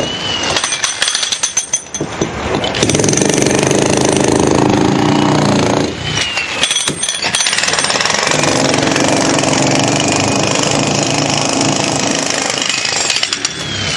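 Jackhammer breaking up brick and concrete, a rapid continuous hammering that eases off briefly about a second in and again around the middle before starting up again.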